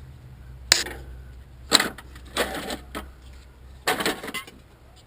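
Four short metallic clatters and rattles, like hand tools being handled and set down, over a low steady hum.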